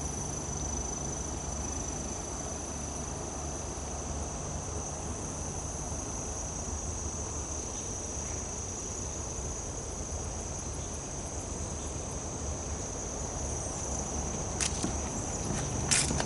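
Insects singing in a steady, high-pitched drone over a low rumble, with a few sharp clicks near the end.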